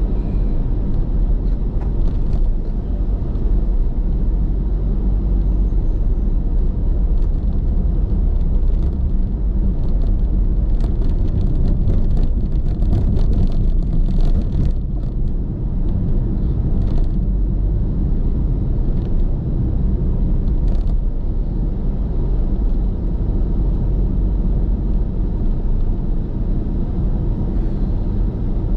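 Car cabin noise while driving: a steady low rumble of engine and tyres on the road, heard from inside the car. A few faint clicks come through around the middle.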